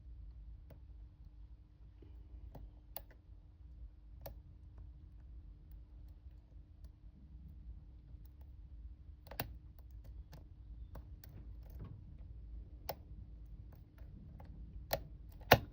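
Faint, irregular small clicks of a lock pick working the pins of a Master Lock skull padlock under tension as the pins set one by one. Near the end come a couple of louder sharp clicks as the lock opens.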